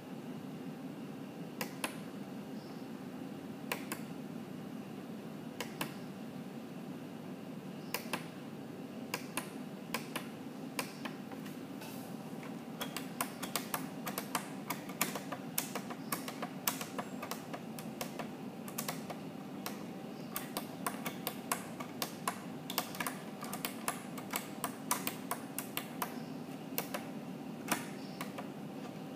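Computer keyboard keys clicking: a few isolated taps at first, then rapid, irregular typing from about halfway through, over a steady low hum.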